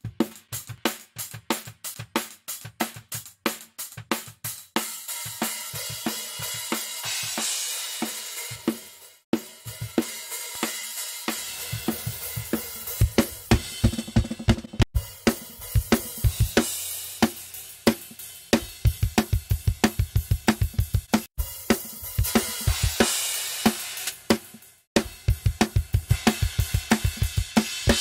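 A recorded metal drum kit playing back: rapid kick-drum and snare hits under washing cymbals, on a drum overhead track with an EQ switched in and out. A few very short dropouts break the playback.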